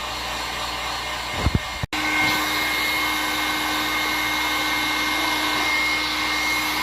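Electric heat gun blowing steadily, with a brief break just under two seconds in, after which it runs on with a steady hum and whine.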